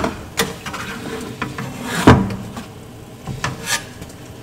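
A spatula scraping and knocking against a metal pan as fried fritters are pushed around in cinnamon sugar, with a few sharp taps and one loud knock about two seconds in.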